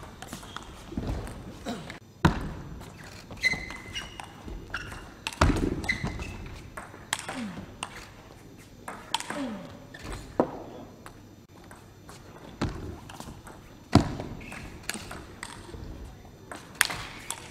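Table tennis rallies: a celluloid ball struck back and forth by rubber-faced paddles and bouncing on the table, a run of sharp irregular clicks and knocks, with several louder hits standing out.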